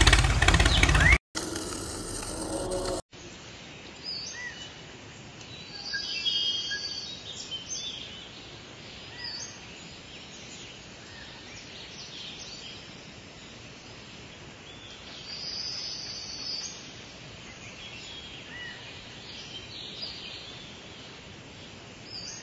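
Birds chirping over a steady outdoor background hiss. It opens with a loud noisy burst of about a second, then a couple of seconds of a different, steadier sound that cuts off suddenly about three seconds in.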